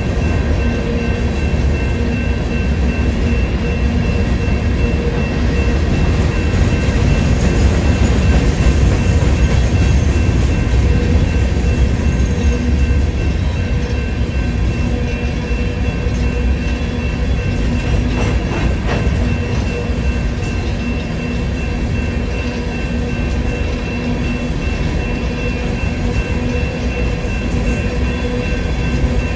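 Long freight train of open-top gondola cars rolling past: a continuous low rumble of wheels on rail, with a steady high whine running over it.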